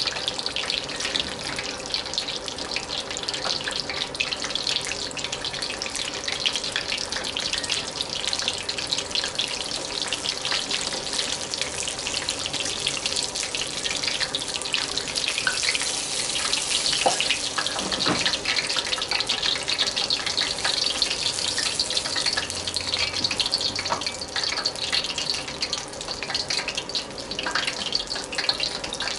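Egg rolls deep-frying in a pan of hot oil: steady sizzling with a dense crackle throughout, the rolls golden brown and nearly done. A few sharper clicks stand out near the middle.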